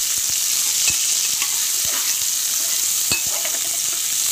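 Chopped onions sizzling in hot oil in a pressure cooker, stirred with a metal spoon that clicks and scrapes against the pot a few times.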